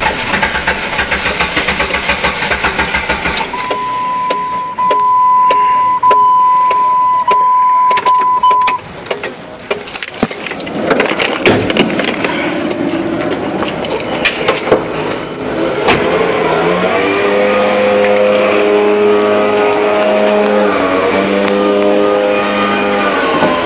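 Jeep Grand Cherokee WJ that won't start after a new battery was fitted: the starter cranks briefly at the start. A steady warning chime follows for about five seconds, then keys rattle and click at the ignition. Near the end there is a steady droning of several tones that shift in steps.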